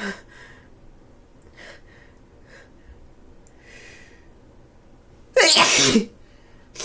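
A woman with a cold sneezing once, loudly, about five and a half seconds in: a sudden voiced sneeze that falls in pitch. Before it come a few faint breaths, and a short burst follows right at the end.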